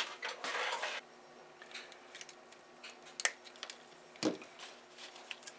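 The tail of a nylon cable tie being trimmed off with cutters and the plastic light housing handled on the bench: a brief rustle, then small clicks, a sharp snip a little over three seconds in and a duller knock about a second later.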